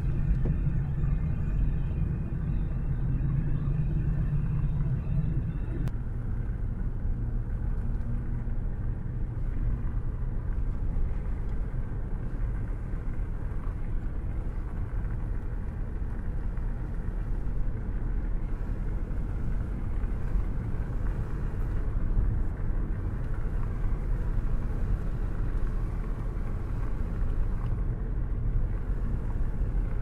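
Steady rumble of a car's engine and tyres heard from inside the cabin while driving. A low hum in it drops away about six seconds in.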